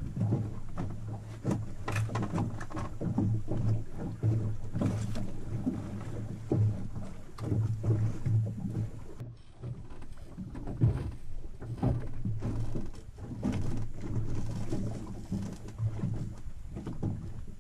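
A small boat at sea: water slapping irregularly against the hull over a steady low hum.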